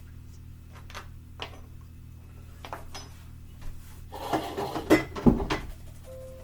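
Kitchen clatter of dishes and utensils being handled: a few light clicks and knocks, then a louder run of clattering about four seconds in.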